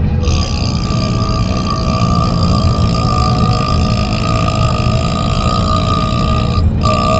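A man's long, drawn-out burp lasting about six and a half seconds, breaking off near the end before another burp begins. Steady low car road rumble underneath.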